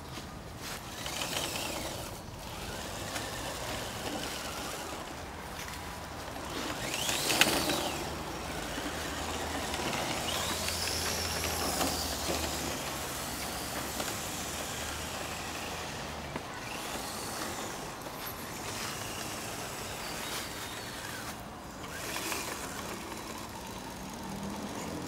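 Radio-controlled 6x6 scale truck's motor and gears whining, rising and falling in pitch as the throttle is worked over and over while it crawls over dirt mounds, loudest about seven seconds in.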